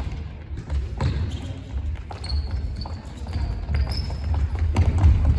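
A soccer ball being kicked and bouncing on a wooden gym floor, with repeated sharp thuds. Short high squeaks of shoes on the floor come in from about halfway through.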